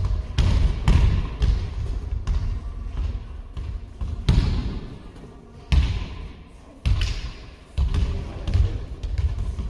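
Basketballs bouncing on a sports-hall floor: irregular deep thuds, some close and loud, each trailing a hall echo.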